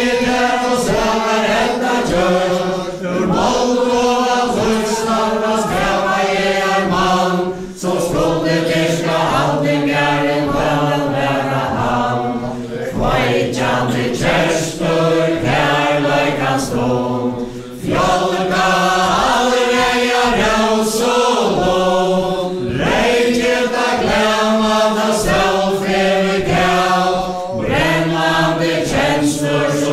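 A mixed group of men and women singing a Faroese chain-dance ballad together without instruments, with short breaks between the sung lines.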